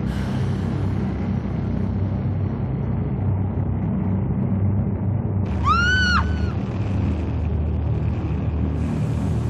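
A steady low rumbling drone, with one high cat meow about six seconds in that rises and then falls in pitch.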